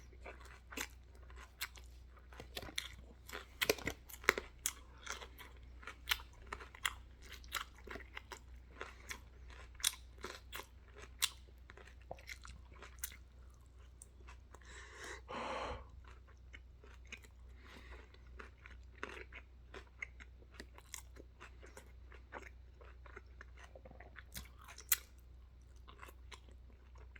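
A person chewing loudly on pizza and salad with ranch: many irregular wet mouth clicks and crunches, with one longer noisy slurp or breath about fifteen seconds in.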